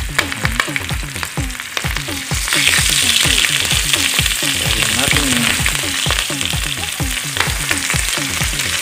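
Dried salted fish (tuyo) frying in hot oil in a pan: steady sizzling, which grows louder about two seconds in, with light scrapes as the fish is worked with a fork. Under it runs a low rhythmic pulsing, about three beats a second.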